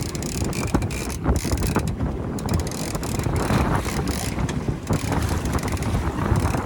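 Wind buffeting the microphone on a moving boat, with water and motor noise underneath and irregular mechanical clicking throughout.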